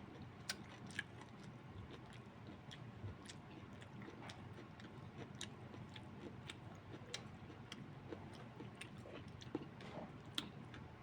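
Faint chewing of a meal of pork, cabbage and rice: many small, irregular wet clicks of the mouth, with a few sharper clicks among them.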